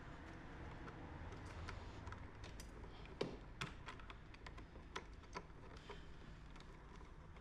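Irregular light clicks and taps of hand tools and small metal parts being handled, over a low steady hum; the sharpest click comes about three seconds in.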